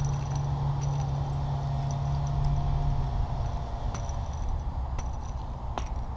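FPV racing quadcopter's motors buzzing in flight, with a steady low hum that eases off about three seconds in, over a rushing noise and a few light clicks.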